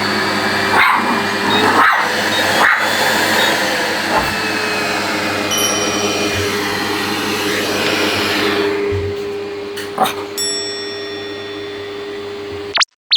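Oneisall pet grooming vacuum running steadily: a motor hum over rushing air, with a few short sharp knocks, cutting off suddenly near the end.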